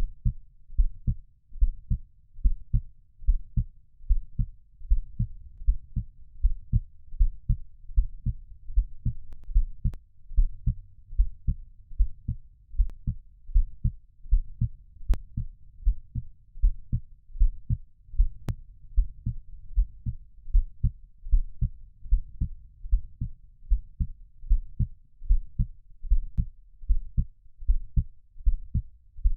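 Recorded heartbeat: a steady rhythm of low, soft double thumps (lub-dub), roughly one beat a second.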